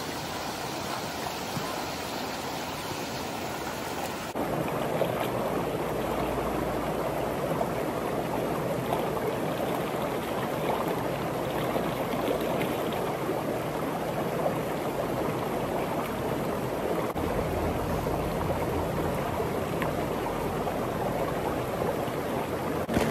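Shallow mountain creek running over rocks, a steady rushing of water. About four seconds in it jumps a little louder and closer.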